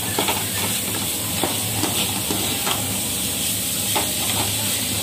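Vegetables sizzling in an aluminium kadai while a slotted steel spoon stirs them, scraping and clicking against the pan every half second or so, over a steady low hum.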